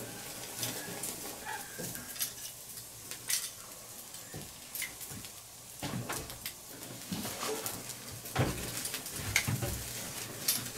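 Pork rack sizzling on a grill grate over a charcoal and wood fire, with scattered crackles and pops as dripping fat feeds the flames into flare-ups.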